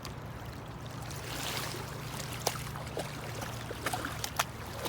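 Steady rush of a river running high after rain, with a few faint clicks and taps in the second half.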